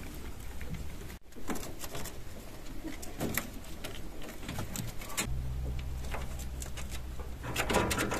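Rabbits moving about in wooden hutches with wire-mesh floors: scattered light clicks and rustles. A low steady hum comes in at about five seconds.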